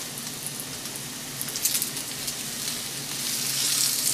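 Ribeye steaks sizzling in a hot cast iron grill pan while they are turned over. The sizzle swells louder about three and a half seconds in, as a flipped steak goes back down on the iron.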